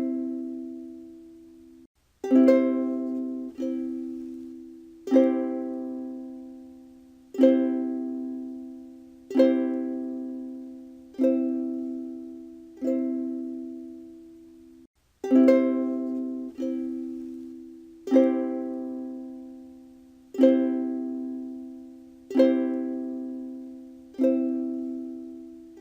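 Ukulele strumming a C (Do) chord over and over, roughly one strum every two seconds, each left to ring and fade before the next.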